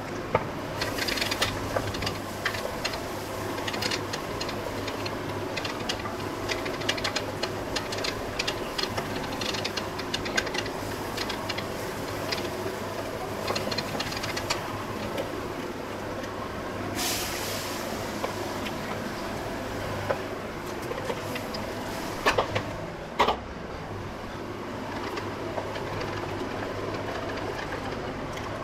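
Masala frying in oil in an aluminium pressure cooker on a gas burner, with a metal spatula scraping and clinking against the pan as it is stirred; a few louder knocks stand out near the end, over a steady low hum.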